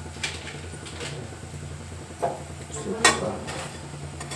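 Metal ladle clinking and scraping against a steel cooking pot in a few scattered knocks, the loudest about three seconds in, over a steady low hum.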